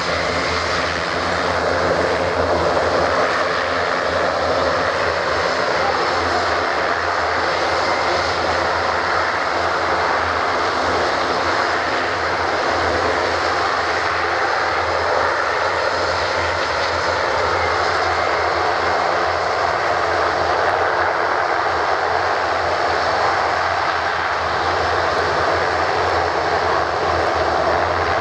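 Airbus A400M Atlas's four TP400 turboprop engines running with propellers turning as the aircraft taxis slowly. The sound is a steady, even drone: a deep hum under a broad rushing hiss.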